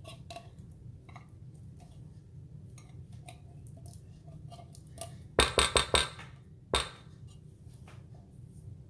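Quiet kitchen, then a quick run of sharp clinks and knocks about five and a half seconds in and one more knock about a second later. This is a can of cream of chicken soup being emptied, knocking against a dish.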